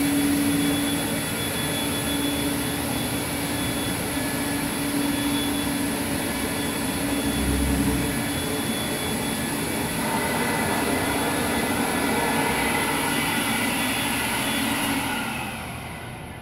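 Electric blower motor of a Super Blowback line-carrier unit running steadily, blowing a foam line carrier through a conduit run, then winding down near the end.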